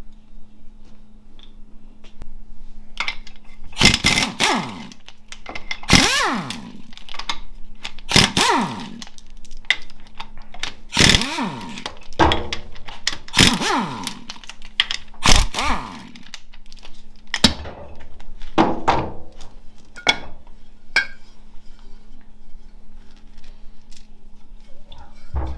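Power tool, such as an impact wrench or electric ratchet, run in about six short bursts roughly two seconds apart, each winding down in pitch when released, while fasteners are taken off the 4L65E automatic transmission case. Lighter metal knocks and clicks of parts being handled follow in the second half.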